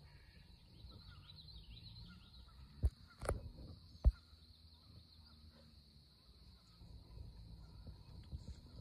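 Quiet lakeside outdoor ambience: birds chirping faintly over a steady high-pitched hiss, broken by three sharp knocks about three and four seconds in.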